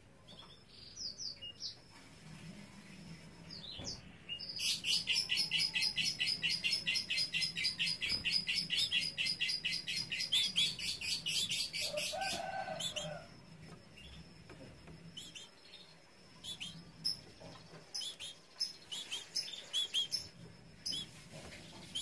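Domestic canary singing: a fast, even trill of about ten notes a second, lasting about eight seconds, followed by scattered short chirps.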